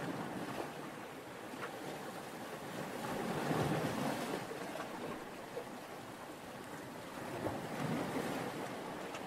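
Sea waves, a steady rush of surf that swells about four seconds in and again about eight seconds in.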